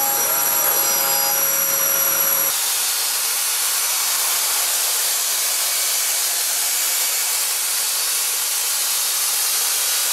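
Five-axis CNC machining center finish-milling an aluminium impeller: a steady whine of several tones from the spindle and cut. About two and a half seconds in it switches abruptly to a loud, even hiss.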